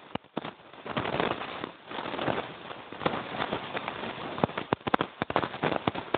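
Sled runners scraping and hissing over a rutted snow track at speed, with irregular knocks and rattles from bumps. It gets louder about a second in.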